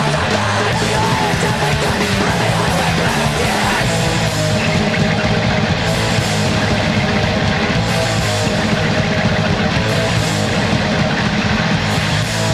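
Fast hardcore punk (fastcore) band recording: distorted electric guitar, bass and drums playing loud and without a break.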